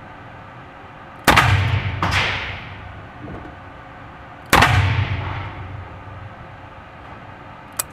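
Pistol shots: two loud reports about three seconds apart, each dying away in a long echo, with a softer report following the first by under a second. A small click near the end.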